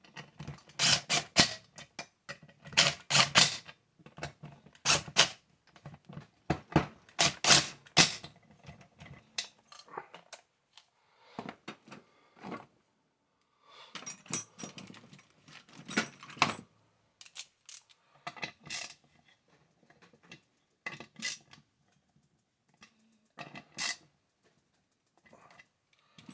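Cordless power driver running screws into a chainsaw's engine housing in short bursts, with metallic clinks of loose screws and tools being handled between bursts.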